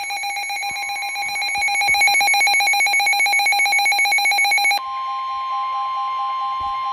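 Emergency alert tones: a harsh, rapidly pulsing alert tone that cuts off suddenly about five seconds in, leaving the steady two-note Emergency Alert System attention signal, which announces another weather warning.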